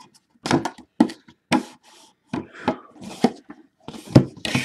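Plastic shrink wrap being torn off a cardboard trading-card box and the box being handled: a run of separate sharp crinkles and knocks, about two a second.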